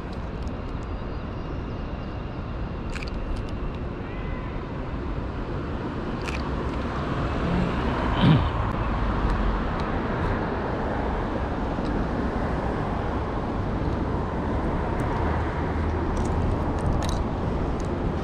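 Downtown street ambience: a steady hum of car traffic on the street, with a few faint clicks and one short louder sound about eight seconds in.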